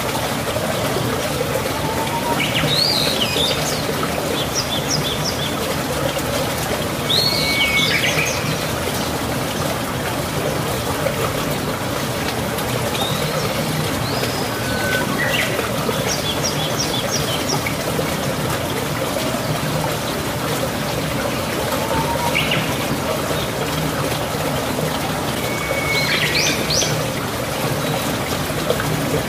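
Birds chirping in short calls every few seconds over a steady rush of running water.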